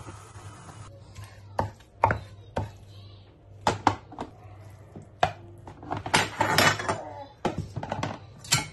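Knife chopping cooked beef on a wooden cutting board: irregular sharp strikes, a few spaced apart at first, then a quicker run of chopping in the second half.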